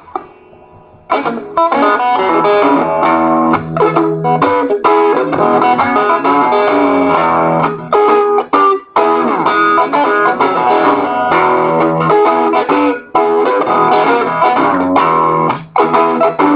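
Electric guitar playing an out-of-tune blues boogie, starting quietly and coming in loud about a second in, with short breaks and a few sliding notes.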